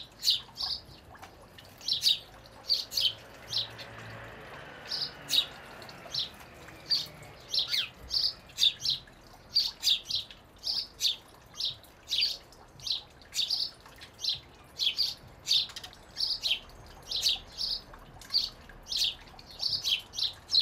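House sparrows chirping, a short single-note cheep repeated steadily about two to three times a second.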